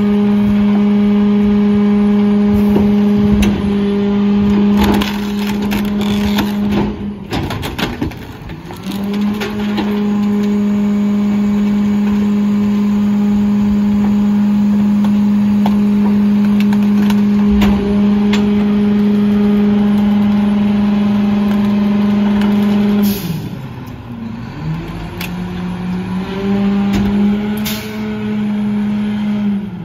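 Heil 5000 rear-loader garbage truck running its packer: the engine is held at raised revs under a steady hydraulic whine. A few seconds in comes a spell of cracking and knocking as a bulky load is crushed in the hopper. Near the end the pitch dips and then climbs back.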